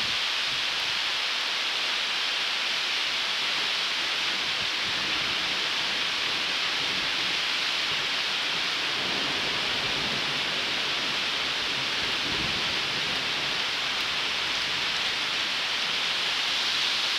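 Steady heavy rain pouring down in a thunderstorm, an even hiss, with a faint low rumble of thunder around the middle.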